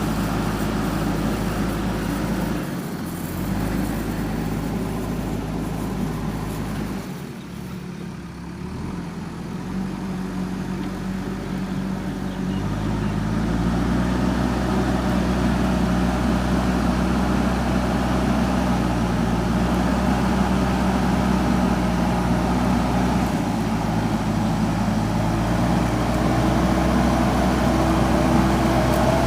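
JCB backhoe loader's diesel engine running steadily. Its note drops lower and quieter about seven seconds in, then revs back up around twelve to thirteen seconds and holds a higher, louder, steady pitch.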